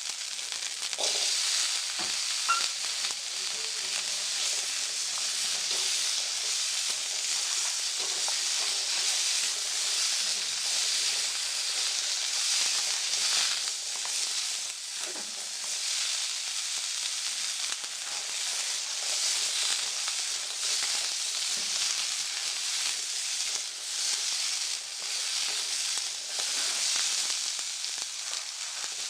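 Small potato pieces frying in hot oil in a kadhai: a steady sizzle, with a few short knocks.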